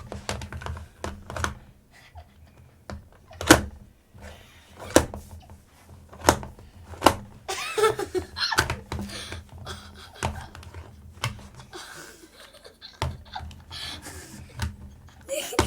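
Plastic Rubik's Cube being turned one-handed and pushed against a table: irregular clicks and knocks.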